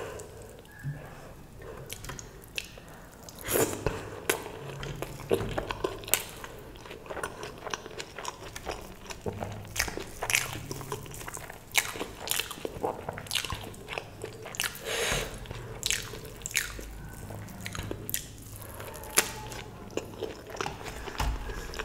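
A person biting and chewing crisp food, with many irregular crunches and mouth clicks.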